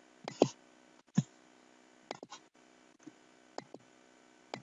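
Computer mouse clicks: a handful of short, sharp clicks spaced roughly half a second to a second apart, one pair in quick succession, over a faint steady background hiss.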